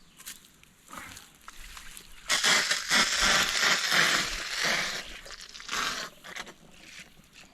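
Water turned on into a garden hose: a sudden loud hiss of water and air rushing through the tap and the quick-connect fittings, starting a couple of seconds in and tapering off, with a few clicks and knocks of handling around it.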